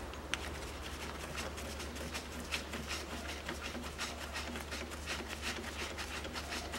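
Ratchet wrench clicking in quick, irregular runs as the bolt of the new timing-belt idler pulley is screwed in, over a steady low hum.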